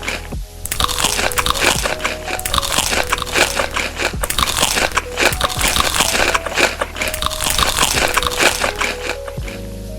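Close-miked crunching and chewing of crisp food, a dense run of crackling bites that stops shortly before the end, with background music underneath.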